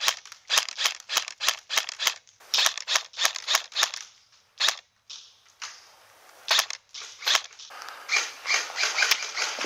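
Airsoft replica firing a rapid string of sharp snapping shots, about four a second for the first four seconds. A few single shots follow, then a rustling, shuffling noise near the end.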